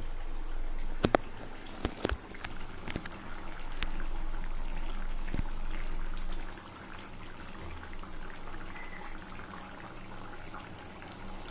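Liquid sloshing and pouring in a clay cooking pot as gravy is handled with a ladle, with several sharp knocks of the ladle against the pot in the first half. The level drops about six and a half seconds in, leaving softer liquid sounds.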